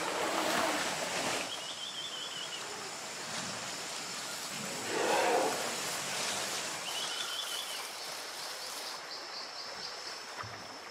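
A herd of Bornean elephants leaving a river through water and tall grass, with steady splashing and rustling; about five seconds in one elephant gives a loud roaring call. A short warbling high call comes twice over a thin, steady insect drone.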